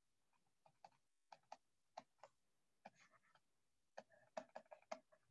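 Faint, irregular clicks and light taps of hand-drawing input on a computer, a few at a time at first and coming thick and fast over the last second or so.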